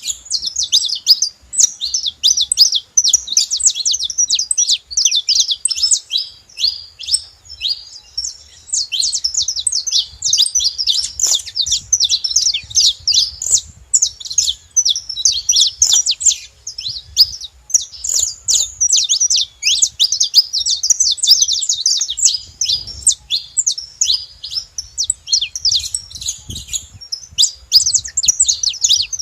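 Several saffron finches chirping and singing together in a dense, continuous chatter of rapid high chirps and trills.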